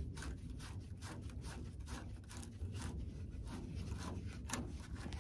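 Faint, irregular scraping and rubbing, several short strokes a second, as a rubber radiator hose is twisted and worked into place by hand.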